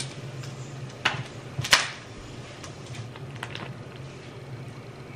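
A metal utensil clacks against a frying pan twice, about one second and just under two seconds in, the second the louder, over a steady low hum.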